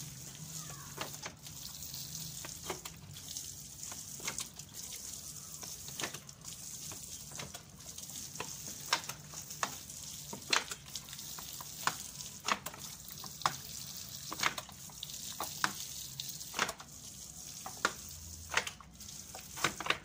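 Water sprinkling from a shower-head bottle onto loose, freshly sown soil: a steady hiss with many scattered small ticks and pats.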